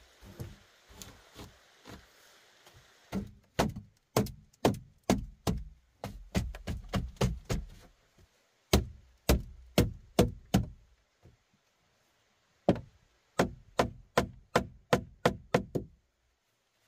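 Repeated sharp knocking strikes, as of a hand tool hitting wood, in runs of several blows a few a second, with short pauses between the runs.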